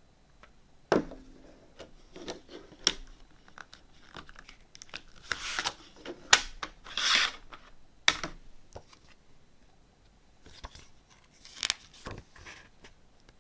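A CD package being opened by hand: plastic wrapping torn and crinkled in two longer rustling rips near the middle, between sharp clicks and taps of the case being handled.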